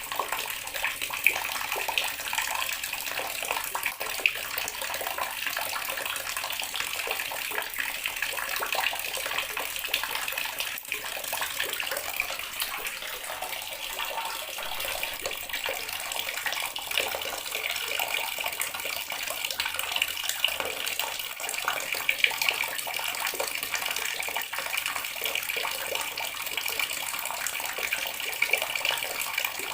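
Water running steadily from a tap, a continuous splashing stream with small irregular splashes.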